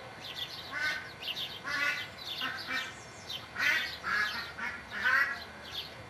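Birds calling: a quick run of short, harsh calls mixed with higher chirps, loudest a little past the middle.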